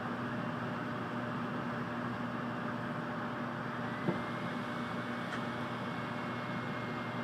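Interior running noise of a 700 series Shinkansen passenger car: a steady rush of wheel and air noise with a low hum. A faint high tone comes in about halfway and holds, and there is a single light click at about the same point.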